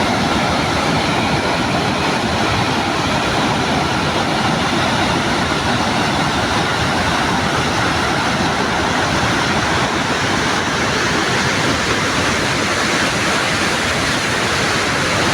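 Steady rushing of the water of Victoria Falls, a large waterfall, pouring down.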